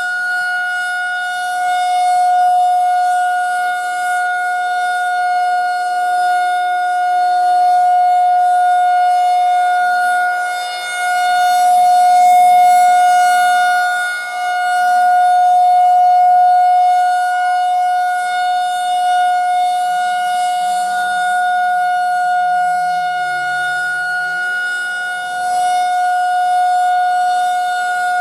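Federal Signal 2001-130 rotating electromechanical outdoor warning siren sounding a steady single-pitch alert tone during a siren test. Its loudness swells and fades every few seconds as the rotating horn sweeps toward and away.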